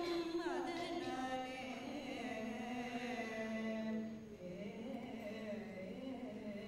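Hindu devotional chanting: voices intone mantras in a sing-song, holding and bending pitches over a steady low drone. The sound drops a little about four seconds in.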